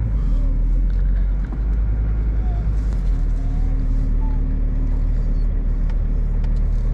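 Car engine and road rumble, a steady low hum, while driving slowly.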